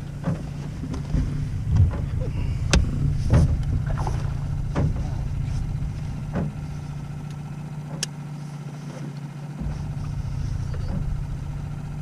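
Steady low hum of a fishing boat's motor. About half a dozen sharp knocks and clicks are scattered through it as a landing net and fishing rods are handled against the boat.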